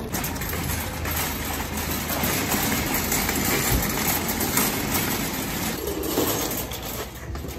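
Metal shopping trolley rattling and jangling as it is pushed over paving slabs.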